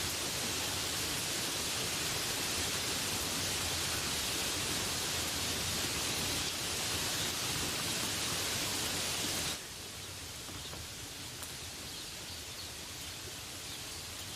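Steady rain falling, an even hiss of many drops. About two-thirds of the way through it cuts suddenly to a quieter, thinner rain with a few separate drips.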